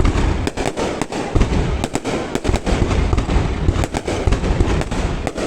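Fireworks display: a rapid, unbroken string of sharp shell bursts and cracks, several a second, over a continuous low rumble of booms.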